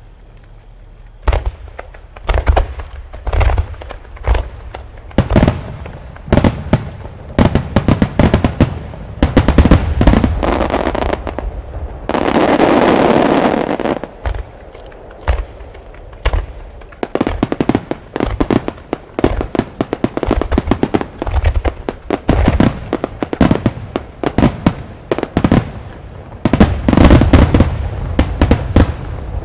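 Rapid barrage of aerial firework shells from a starmine display bursting in quick irregular succession, starting about a second in. A couple of seconds of continuous rushing, crackling noise come near the middle.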